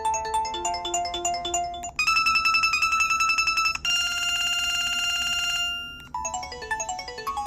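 Preloaded ringtones of an LG VX5450 cell phone playing one after another. A melodic tune ends about two seconds in and is followed by a rapidly pulsing electronic ring, then a steady buzzy tone that fades out. A new tune of quick descending notes starts about six seconds in.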